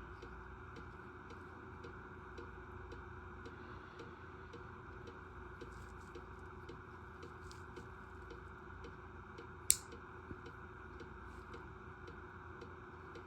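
Faint, steady ticking of a clock, about two ticks a second, over a low room hum. About ten seconds in there is one sharp, louder click.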